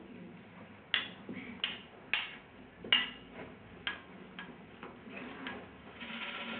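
Irregular sharp taps on hanging objects of a sound installation, about eight single strikes, each ringing briefly. Near the end they give way to a denser, continuous rattle.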